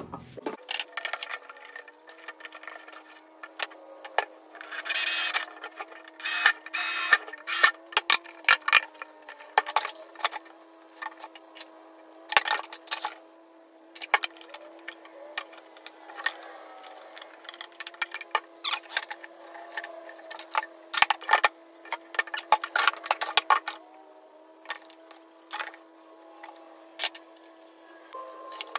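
A plastic water jug and a 5-gallon plastic bucket being handled on a wooden workbench: irregular knocks, clicks and short scrapes of plastic against plastic and wood, with a faint steady hum underneath.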